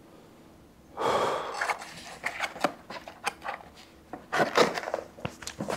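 Handling noises from a small book or box: a brief rustle about a second in, then a run of irregular clicks and taps.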